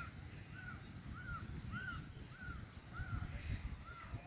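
A bird calling one clear, arched note over and over, about twice a second, stopping near the end, over a steady low rumble.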